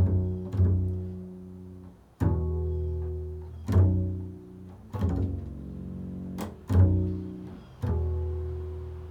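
Improvised solo music on a plucked, low-pitched string instrument: single deep notes struck about every one to two seconds, each ringing out and fading before the next.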